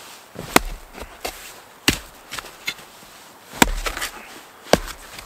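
Small axe chopping into a dry, dead spruce round to split it: four hard, sharp strikes, with lighter knocks between them.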